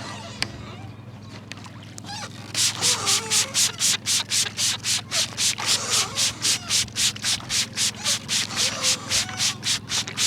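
Palms rubbing fast and hard over a person's hair and scalp in a vigorous head massage: a rapid, even rhythm of about four scratchy strokes a second that starts a couple of seconds in. A steady low boat-engine hum runs underneath.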